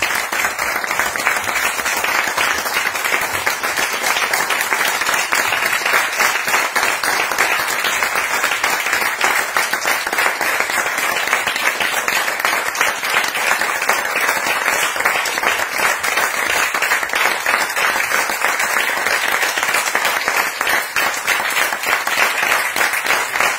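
A small seated audience applauding: steady, dense clapping of many hands with no letup.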